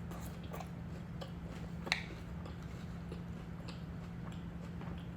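A person chewing a mouthful of salad, with faint soft crunches and one sharper click about two seconds in, over a steady low hum.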